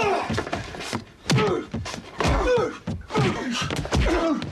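Voices with several heavy thumps and knocks among them.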